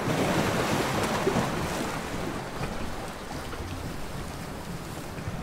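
Ocean waves washing in a steady rush of surf, loudest in the first second and easing off after.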